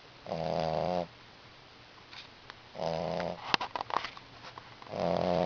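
English bulldog puppy snoring in its sleep: three snores about two and a half seconds apart, each a short, fluttering breath. A quick run of sharp clicks comes between the second and third.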